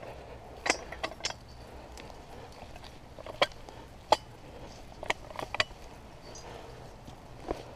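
Light metallic clicks and clinks, about nine spread unevenly: a hinge pin and cotter pin being worked into the hinge of a Pullerbear tree puller to set it for a 1-inch stem.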